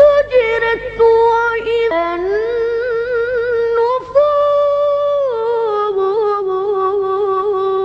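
A single voice chanting Quran recitation melodically, drawing out 'wa idha' (and if) in long held notes that glide up and down in pitch.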